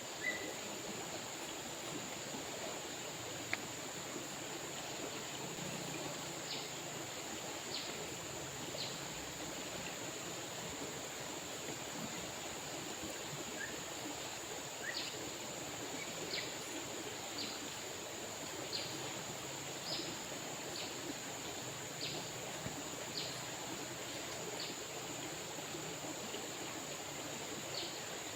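River water flowing steadily. Short high chirps, from a bird or insect, repeat about once a second from several seconds in, over a steady high-pitched whine.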